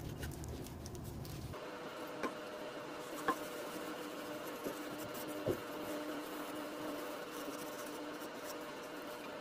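A cloth rubbing over the wood of a turned juniper vase as finish is wiped on by hand, faint and scratchy, with a few light taps, over a steady low hum.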